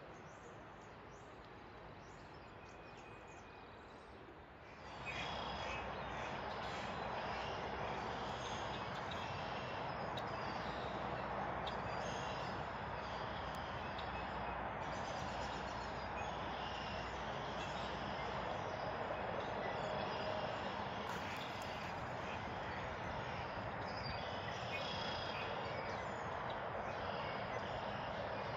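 Birds chirping and singing over a steady background hiss, which gets louder about five seconds in.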